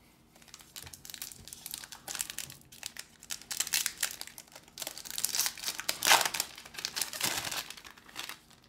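A foil Pokémon booster pack wrapper crinkling and tearing as it is handled and ripped open, in an irregular run of crackles, loudest about six seconds in.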